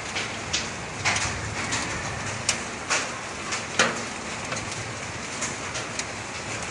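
Volcanic sand-laden rain and small stones falling on a roof: a steady hiss of falling grit with irregular sharp ticks and knocks, the hardest hit about four seconds in.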